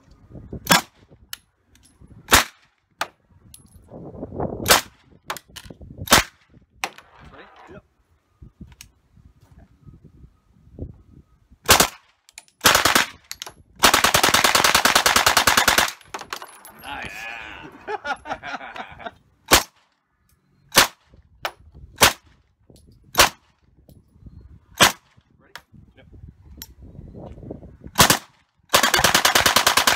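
A fully automatic firearm being shot. There are single shots and short strings at irregular gaps, a sustained full-auto burst about two seconds long near the middle, more single shots, and a second long burst starting near the end.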